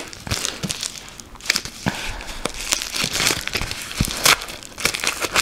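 Thin plastic film crinkling and crackling as it is handled, in irregular bursts with scattered small clicks.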